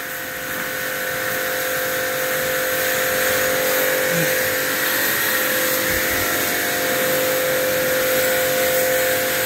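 Electric pressure washer running: its motor gives a steady hum under the hiss of the high-pressure water jet spraying, growing a little louder over the first few seconds.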